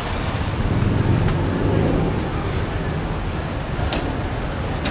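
Steady road-traffic noise with a low rumble that grows louder for a second or so, as of a vehicle passing close by. Two short sharp clicks come near the end.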